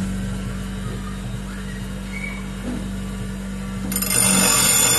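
A 1/2 HP Everest bench grinder's motor runs with a steady hum as its wheel spins free. About four seconds in, a stainless steel round bar is pressed to the grinding wheel and a much louder, high-pitched metal-grinding noise starts suddenly, with ringing tones in it.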